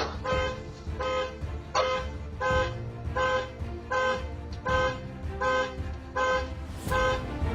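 A car horn sounding in short, evenly spaced blasts, about three every two seconds, like a car alarm going off.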